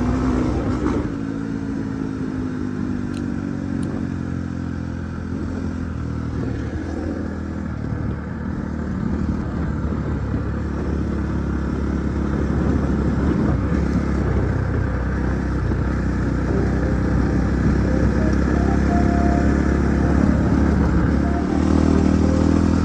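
Husqvarna 450 dirt bike's single-cylinder four-stroke engine running, its pitch shifting a little, getting slightly louder in the second half.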